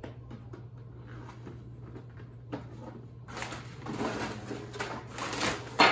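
A small cardboard box being handled and opened, with packaging rustling that grows louder in the second half and a sharp knock near the end. A low steady hum runs underneath.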